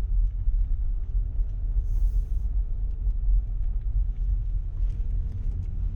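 Steady low rumble of a car driving, heard from inside the cabin: engine and tyre noise from the road.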